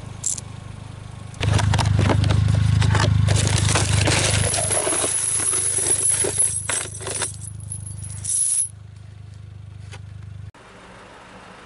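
Four-wheel-drive vehicle moving over a snowy road: a low rumble with dense crackling and rattling from the tyres on snow for about seven seconds, then quieter running until it cuts off sharply near the end.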